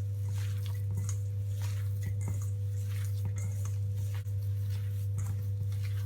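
A steady low electrical hum runs throughout. Over it come soft, irregular squishing sounds of hands kneading and mixing a mashed potato mixture in a bowl.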